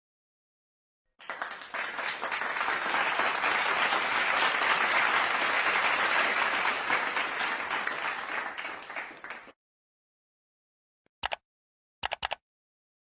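Crowd applause, many hands clapping, that swells and then tapers off over about eight seconds. Near the end come computer mouse clicks: a single click, then two in quick succession.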